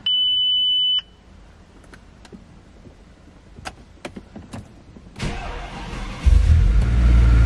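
A dashboard warning chime beeps once for about a second. About five seconds in, the Audi RS6's 5.0-litre twin-turbo V10 cranks and catches about a second later, settling into a loud, steady idle. This is its first start after new PCV breather valves were fitted.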